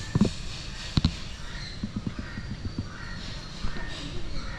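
Outdoor ambience with faint bird calls, broken by two sharp knocks near the start and a run of light taps around two seconds in.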